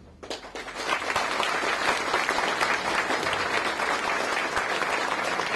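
Audience applauding: many people clapping in a steady, dense round that starts just after the first moment.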